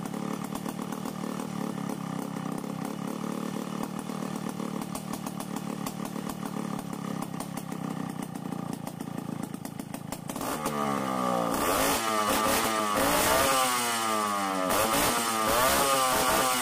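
Stihl 070 chainsaw's two-stroke engine idling steadily while its carburettor screws are being adjusted with a screwdriver. About ten seconds in it starts revving, rising and falling in pitch over and over, and gets louder.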